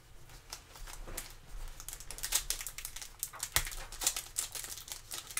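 Foil trading-card pack wrapper crinkling and crackling as gloved hands handle it and begin pulling it open, getting louder about two seconds in, with one short knock past the middle.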